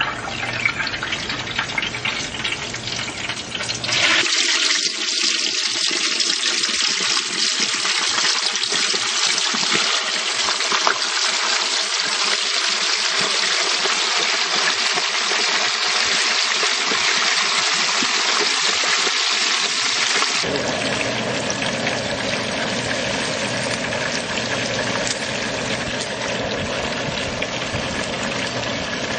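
Hot oil in a turkey fryer pot bubbling and sizzling hard around a whole turkey, a dense steady hiss. Its character changes abruptly about four seconds in and again about twenty seconds in.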